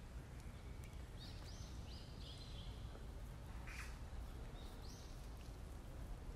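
A bird chirps a quick run of short high notes that step down in pitch about a second in, then two more near the five-second mark. Under it is a faint low rumble and a few brief rustles of leaves.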